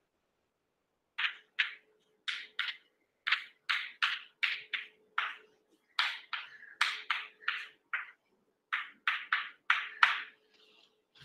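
Chalk writing on a blackboard: a quick run of short, sharp scratching strokes, starting about a second in, in small groups with brief pauses.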